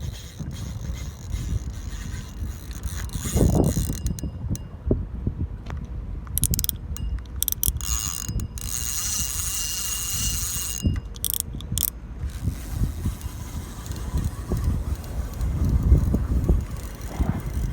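Fishing reel being cranked to retrieve line, its gears clicking, with a low rumble underneath.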